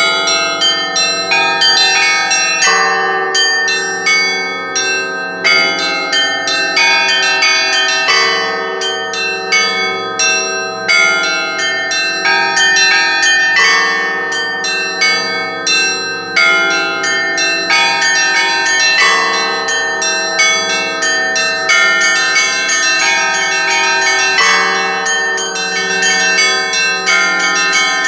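Church bells pealing: a large bell struck about every two and a half to three seconds, with a quick running pattern of smaller, higher bells between its strokes.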